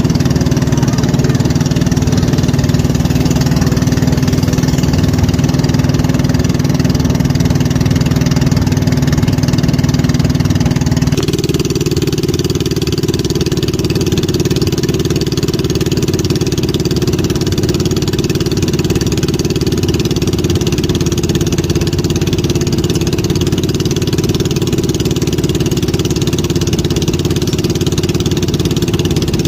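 An engine running steadily, its pitch stepping up suddenly about eleven seconds in.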